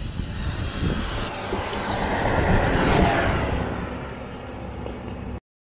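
Large coach bus passing close by on a highway. Its engine and tyre noise swells to a peak about three seconds in, then fades as it moves away, and the sound cuts off suddenly near the end.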